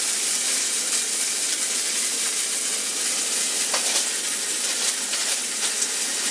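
Bacon-wrapped steak sizzling steadily in a cast iron pan, with a few faint crackles.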